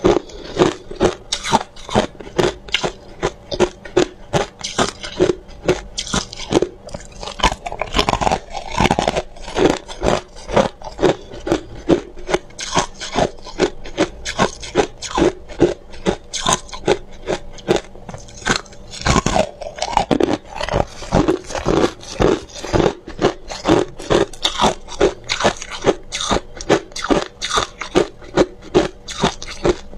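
Crushed ice being bitten and chewed close to a clip-on microphone: a steady run of crisp crunches, two or three a second, with heavier bites about a quarter of the way in and again past the middle.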